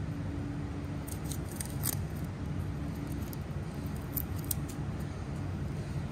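Knife blade cutting the tape off a coil of pyrometer gauge wire: a few short, sharp cutting strokes a second or two in and again just after four seconds in, over a steady low hum.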